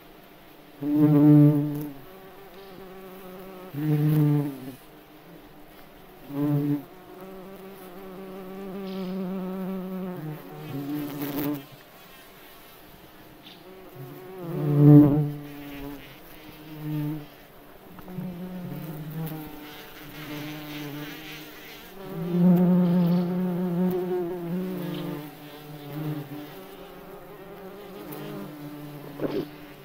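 Bumblebees buzzing in flight, a low droning hum that swells loud and fades again several times as they fly close past and away.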